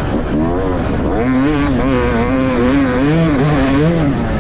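Yamaha two-stroke dirt bike engine heard from the rider, revving up and down as the throttle is worked along the trail, its pitch rising and falling every second or so.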